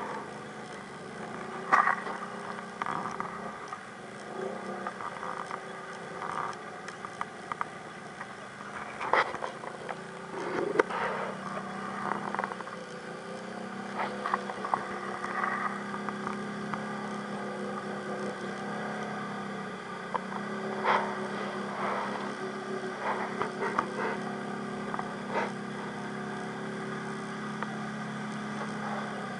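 ATV engine running steadily at a fairly even pitch, with a quad stuck in a water-filled mud hole and scattered sharp knocks.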